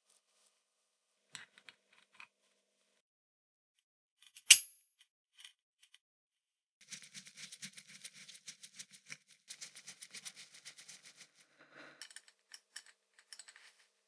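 Light metallic clicks, then one sharp metal clink with a short ring about four and a half seconds in. This is followed by a few seconds of rapid small clicking and scraping as a screwdriver turns the screws that hold the blade set on a vintage Sunbeam Stewart animal clipper.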